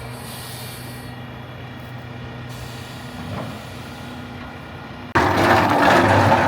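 A heavy-equipment engine idling steadily with a low hum. About five seconds in, a much louder sound cuts in abruptly.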